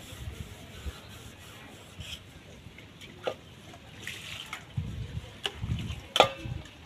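Several puppies eating food off the ground: wet chewing and lip-smacking with scattered short clicks, busier in the second half.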